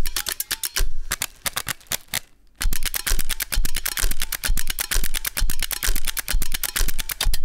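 Rhythmic percussion track made from the rapid clicking of electrical wall switches, with a low thumping beat about twice a second under the clicks. The clicking stops briefly a little after two seconds in, then the beat picks up again.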